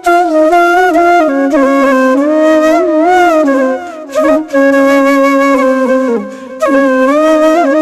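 Background music: a solo flute playing a melody of held notes with sliding, bending ornaments, breaking off briefly about four seconds in and again past six seconds.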